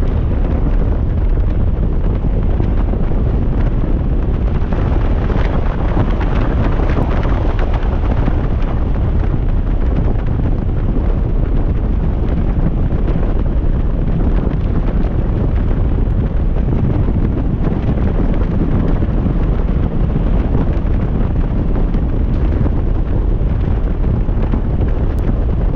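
Steady wind buffeting and rumble on the microphone of a moving Honda motorcycle, blended with engine and road noise.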